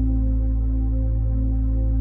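Background ambient music: a sustained synthesizer drone with a deep low hum and soft held tones.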